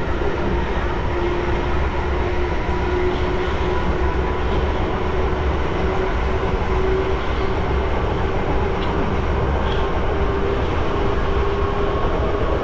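Southeastern electric passenger train running between stations, heard from on board: a steady rumble of wheels on rail with a humming whine that rises slightly in pitch.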